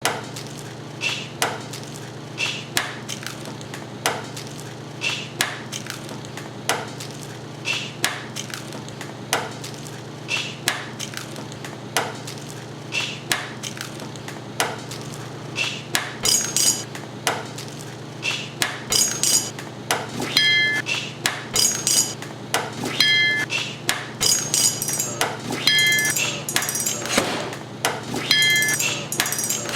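Eggs being cracked one after another against a metal edge: sharp knocks about every second and a half, then faster and overlapping from about halfway, when each knock leaves the metal ringing. A steady low hum runs underneath.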